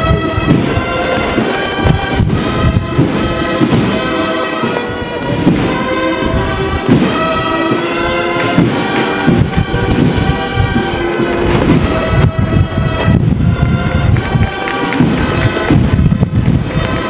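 Procession band playing a slow march: brass holding long notes over heavy, continuous drumming.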